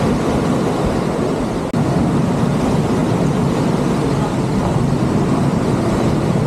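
Wind buffeting the microphone: a loud, steady, low rumble.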